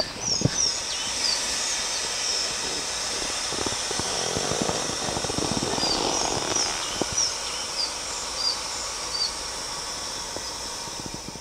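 A person blowing into a packraft's inflation valve by mouth, the air going in as a steady hiss that is strongest near the middle. Birds chirp over it many times.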